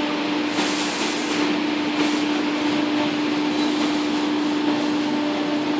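Phaeton 3278K solvent wide-format printer running: a steady machine hum with a constant low tone, and a hiss that swells and fades several times.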